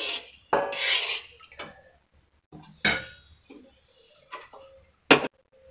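Metal spoon stirring a runny yogurt and gram-flour batter in an iron kadhai, scraping and clinking against the pan in a few separate strokes, with a sharp clink about five seconds in.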